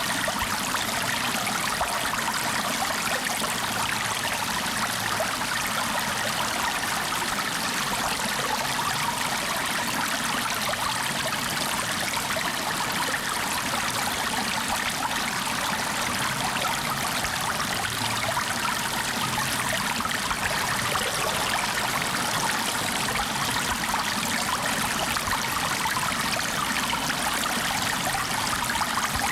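Flowing water running steadily: an even, unbroken rush with no distinct splashes or breaks.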